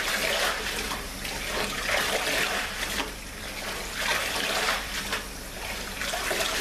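Tap water pouring into a pot already full of water, splashing, while a bunch of parsley is dunked and swished up and down in it to wash out the dirt; the splashing swells and eases repeatedly.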